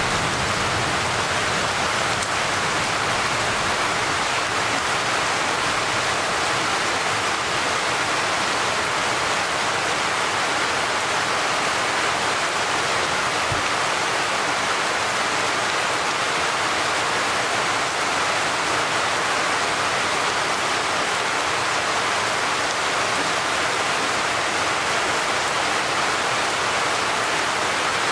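Steady rain from a thunderstorm, a constant even hiss of falling rain with no change in strength.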